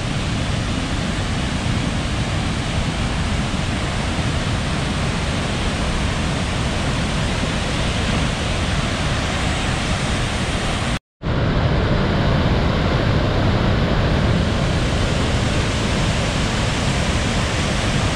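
Steady rush of water from a large waterfall, a dense even noise strongest in the low range. The sound cuts out for an instant about eleven seconds in and comes back slightly louder.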